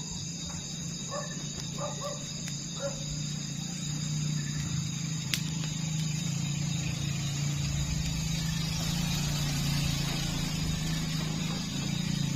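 Fire burning with a steady low rumble and a few sharp, isolated crackles, the loudest about five seconds in.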